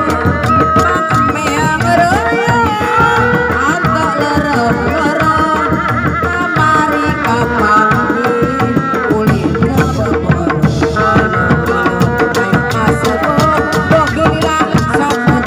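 Live Sundanese kendang hand drums played in a fast, dense rhythm, with a high, wavering melody line gliding over the beat.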